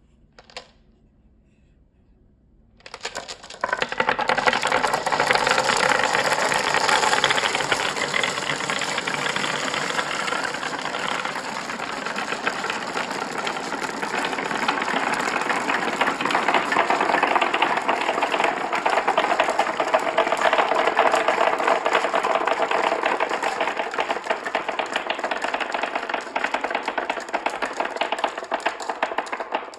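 Many marbles rolling and clattering down a marble run track in a dense, continuous rattle. It starts about three seconds in, after a single click, and stops just before the end.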